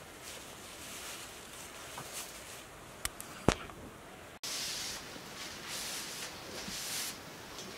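A cloth rubbing along a steel sword blade as it is wiped down, in soft swishing strokes, with two sharp clicks about three seconds in.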